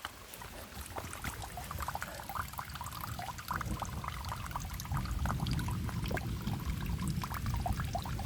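Valley stream running over rocks, a steady rush of water with many small splashes, flowing strongly after rain. It grows louder a few seconds in.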